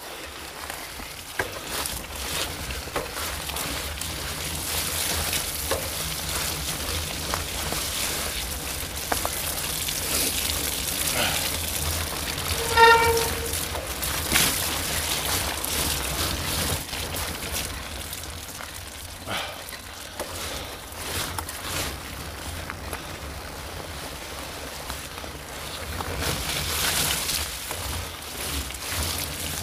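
Wind buffeting the microphone over hissing tyre and splash noise from riding fast along a wet dirt trail. About halfway through there is one short tooting tone.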